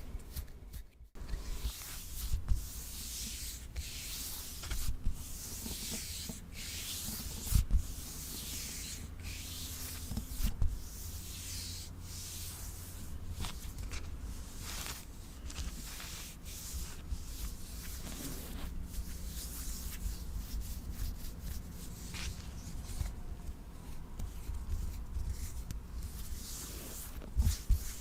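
Repeated rubbing strokes, a hissy scrape about once a second, over low thumps.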